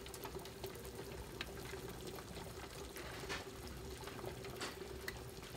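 Faint, steady stovetop sound while beeswax is kept melted over heat: a low hum with small scattered pops, like liquid simmering.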